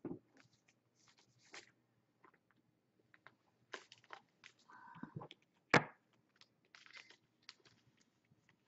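Scattered light clicks and taps of typing on a computer keyboard, with one sharper knock just before six seconds in.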